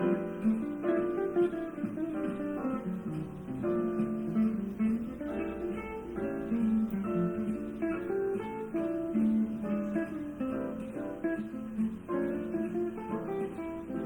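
Background music: acoustic guitar playing a gentle plucked and strummed melody.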